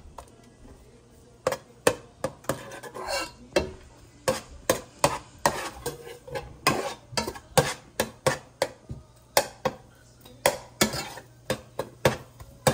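A metal spatula clinking and scraping against a metal cooking pot while stirring garlic and ginger in oil. It is a run of sharp, uneven clinks, about two or three a second, starting about a second and a half in.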